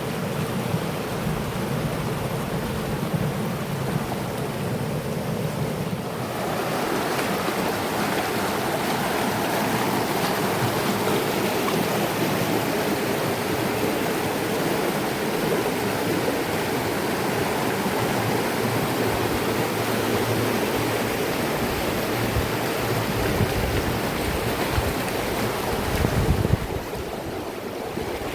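River water rushing and splashing over rocks in a steady rush. About six seconds in it becomes fuller and louder, and near the end there is a brief low rumble.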